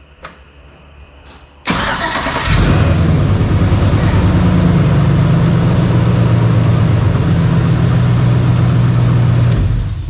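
The LS V8 engine of a swapped pickup is started: the starter cranks for under a second, then the engine catches and settles into a steady idle. It is switched off just before the end.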